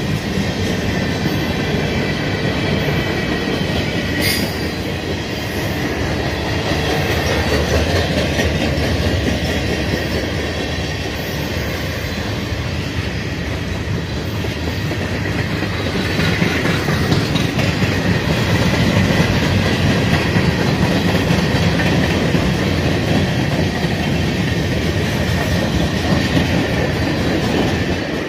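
Freight train cars rolling past: a steady rumble and clatter of steel wheels on the rail, with a thin high squeal from the wheels running above it.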